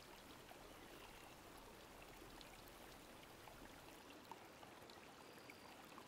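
Near silence: a faint, steady background hiss.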